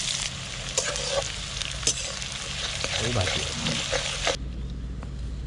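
Chopped onions sizzling in hot oil in a metal kadai, with a metal spatula clicking and scraping against the pan as they are stirred. The sizzle cuts off suddenly about four seconds in.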